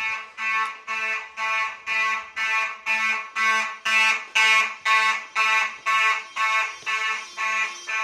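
Fire alarm horn sounding in march-time code from a Simplex 4002 fire alarm system: a loud, buzzy horn tone pulsing on and off about twice a second.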